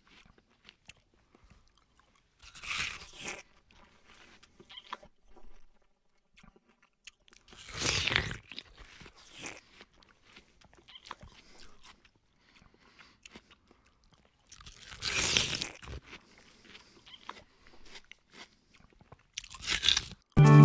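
Eating sounds in short bursts a few seconds apart: a metal fork scraping soft mashed food from a stainless steel bowl, and chewing. Guitar music starts just before the end.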